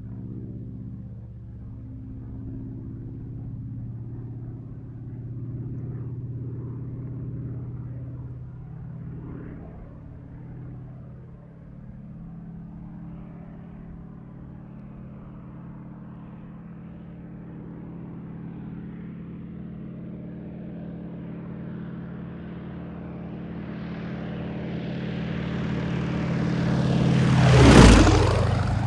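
Helicopter flying fast: a steady low rotor and engine drone grows louder, then passes close near the end in a sharp, loud peak before starting to fade.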